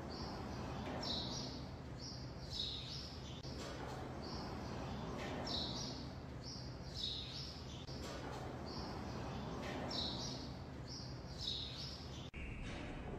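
Small birds chirping, short high chirps in quick groups recurring every second or so, faint over a steady background hiss.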